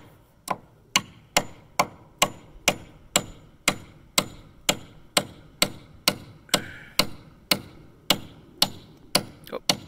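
Hammer driving a nail into a wooden board, with steady, evenly spaced blows of about two a second.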